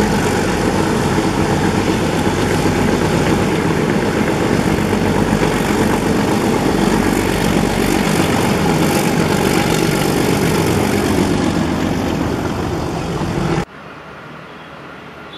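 ALCo WDM-3D diesel locomotive's engine running loud and hard under load as the train passes at close range. About three-quarters of the way through, the sound cuts off abruptly to a much quieter background.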